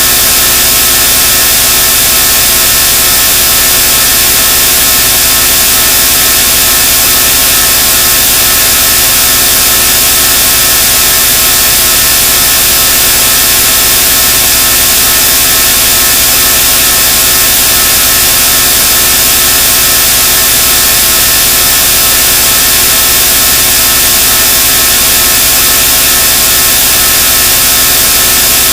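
A loud, unchanging harsh noise, heavy in hiss with a steady buzz running through it, like a power tool or saw running without a break.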